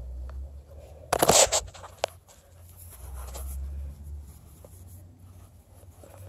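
A brief loud crackling rustle of dry brush and twigs about a second in, followed by a single sharp click. A low rumble comes and goes on the microphone.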